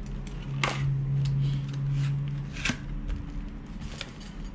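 Clear plastic clamshell fruit box being opened and handled: two sharp plastic cracks about two seconds apart, with lighter crinkling and clicking around them. A steady low hum runs underneath and stops about halfway.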